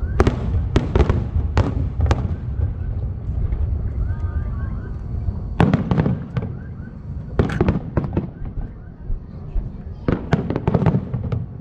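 Aerial fireworks bursting in the sky: clusters of sharp bangs in quick succession, a few seconds apart, with a lull in the middle.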